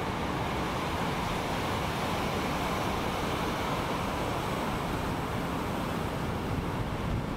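Ocean surf breaking: a steady rushing noise with a low rumble and no distinct separate crashes.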